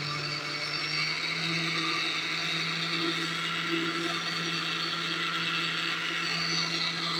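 Electric blender jar running steadily at speed, its motor giving a continuous hum as it whips milk, lemon juice and oil into eggless mayonnaise.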